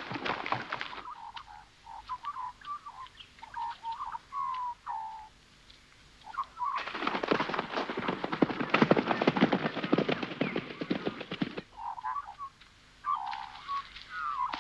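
Birds chirping in short calls, then about seven seconds in a horse gallops past with a rapid run of hoofbeats lasting about five seconds, after which the bird calls go on.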